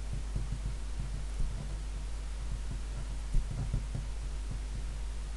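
Steady low hum, with faint, irregular soft taps and knocks of a pen writing on paper laid on a desk.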